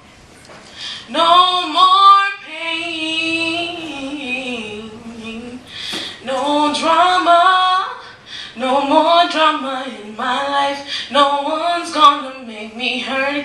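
A woman singing unaccompanied into a microphone, in long phrases that slide and bend in pitch, with short breaks for breath between them.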